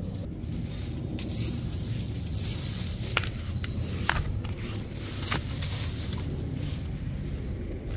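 Footsteps on paving and the rustle of a dry palm frond, with a few sharp clicks and taps about three to five seconds in, over a steady low rumble.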